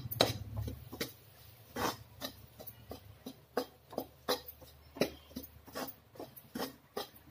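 Steel spoon scraping and clinking against a metal kadhai while stirring a dry, crumbly mix of roasted flour, sugar and chopped nuts, in irregular strokes a few times a second.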